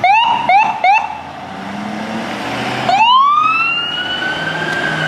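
Siren of a Ford F-550 ambulance pulling out of the station. It gives three quick rising whoops in the first second, then about three seconds in a wail winds up and holds high over the engine running.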